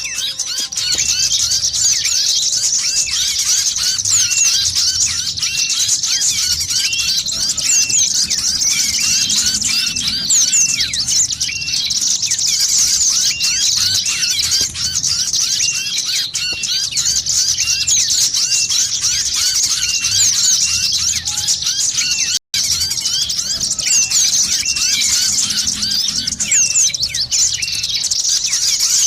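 Bird-lure recording of a crowd of small birds twittering together: dense, fast, high chirps with one chirp repeating about every second, used to draw small wild birds in. The sound cuts out for an instant about three-quarters of the way through.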